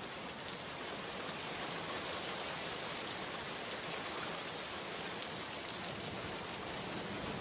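Steady rain falling, an even hiss of rain without any other sound.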